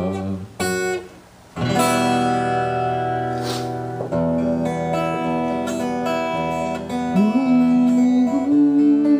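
Live music: guitar chords strummed and left ringing, changing every couple of seconds, with a held note that slides upward twice near the end.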